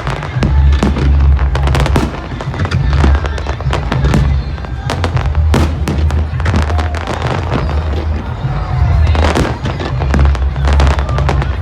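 Fireworks display: a rapid, continuous string of shells bursting in sharp bangs and crackles, over a heavy low rumble.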